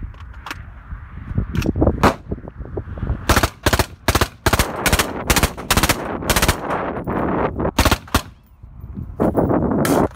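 Suppressed 10.3-inch AR-15 firing 5.56 M193 in full auto through a Thunder Beast DSU suppressor, emptying a magazine in several bursts with short gaps, after a few separate sharp clacks in the first couple of seconds. This is the twelfth magazine of sustained full-auto abuse, and the can is running very hot.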